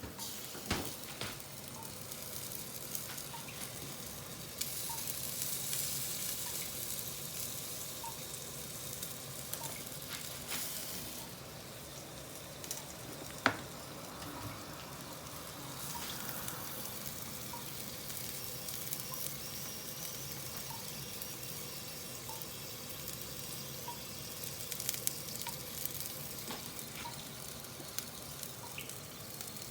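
Yakitori skewers sizzling on an Iwatani tabletop gas grill: a steady sizzle with a few small pops and one sharp click about halfway through.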